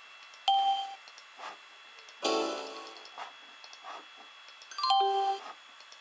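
Windows 3.1 system sounds playing from an iMac G3's speakers under SoftWindows 95: a short single ding about half a second in, a piano-like chord about two seconds in, and a two-note doorbell-like chime near the end.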